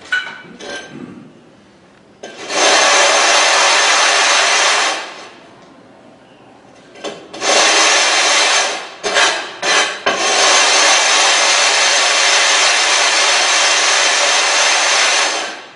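A sharpening stone being rubbed on loose abrasive grit, used dry, to flatten its face: a loud gritty scraping in spells. There is one spell of nearly three seconds, a pause, a few short strokes, then about five seconds of steady scrubbing near the end.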